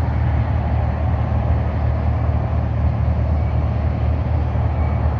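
Steady low rumble of idling truck engines, with an even hiss over it.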